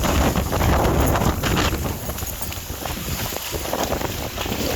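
Hurricane wind buffeting the microphone, a loud rushing rumble that eases a little about two seconds in.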